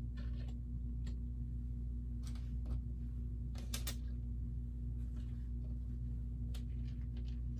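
A few short plastic clicks and rustles of LEGO pieces being handled and sorted, the strongest a quick cluster a little under four seconds in, over a steady low hum.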